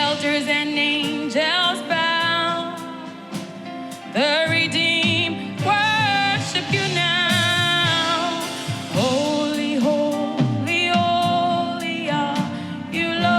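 Live gospel worship music: a lead singer sings long held, wavering notes with vibrato, sliding up into each phrase, over keyboard-and-band accompaniment.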